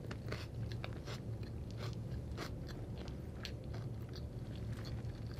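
Close-up chewing of a mouthful of bagel sandwich with lox, cream cheese, red onion and lettuce: irregular crunches and mouth clicks over a steady low hum.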